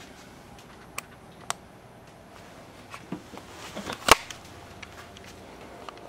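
Two light clicks, then rustling handling noise with one sharp knock about four seconds in.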